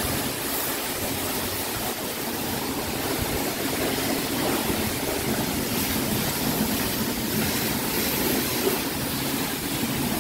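High-pressure spray wand of a self-serve car wash hissing steadily as water jets against a car's body, over a steady low hum.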